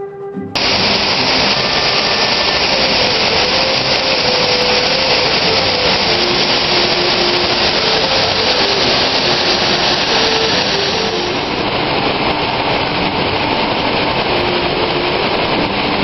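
Waterfall rushing: a steady, loud roar of falling water that cuts in suddenly about half a second in, with faint background music underneath.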